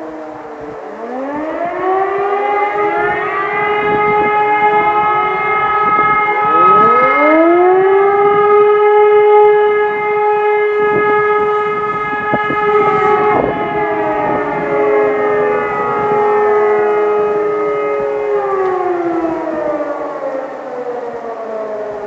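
Several civil defence sirens sounding at once during a siren test: tones still falling at the start, sirens winding up one after another about a second in and again around seven seconds, holding a steady tone, then winding down together in the last few seconds.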